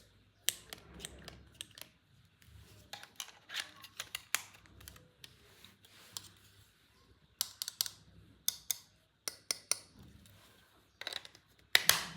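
Irregular clicks, snips and rustles of a toy playset's packaging being handled and opened, with a loud cluster of clicks near the end.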